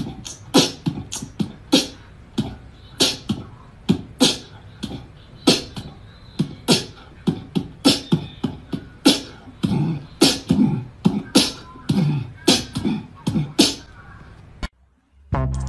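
Beatbox-style mouth percussion: a run of sharp clicks and pops, two or three a second, with low hummed notes mixed in later on. It cuts off suddenly just before the end.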